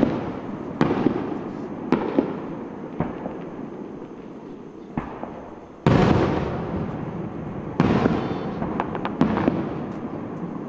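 Aerial fireworks shells bursting overhead: a string of about ten booms at uneven spacing, each trailing off in a rolling echo, the biggest about six seconds in.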